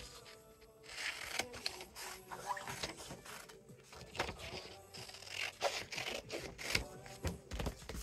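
Scissors cutting a sheet of printed sublimation transfer paper, with paper rustling and crinkling as the sheet is turned and handled: irregular snips and scrapes throughout.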